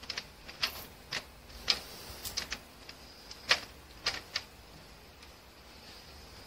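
Brown colored pencil scratching on drawing paper in short strokes: about a dozen irregular, sharp, scratchy ticks, stopping about four and a half seconds in.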